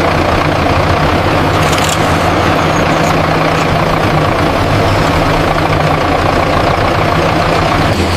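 Heavy construction machine's diesel engine running steadily, a continuous low hum with mechanical clatter over it.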